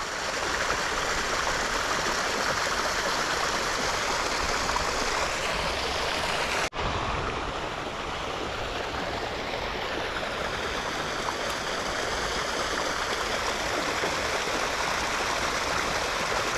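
Steady rush of water flowing in a small, shallow creek, with a brief break in the sound about seven seconds in.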